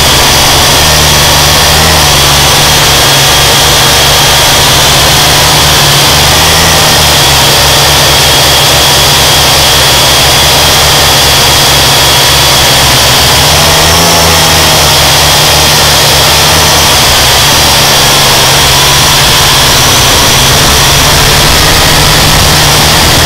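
Small camera drone's electric motors and propellers whining steadily, the pitch shifting slightly as they speed up and slow down, with heavy wind buffeting the microphone in a choppy low rumble.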